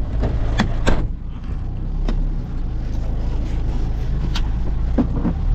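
Steady low engine and road rumble of a mini truck, heard from inside its cab, with a few sharp clicks or knocks: two close together about half a second to a second in, and one more past four seconds.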